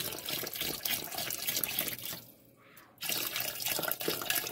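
Water pouring in a thin stream from a carton into a stainless steel stockpot of soup, splashing into the broth. The pour breaks off about two seconds in and starts again a second later.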